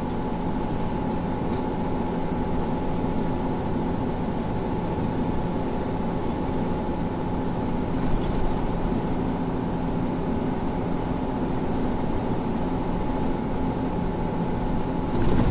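Steady road and engine noise inside a car cruising on an expressway, with a low hum and a faint higher whine held at an even pitch.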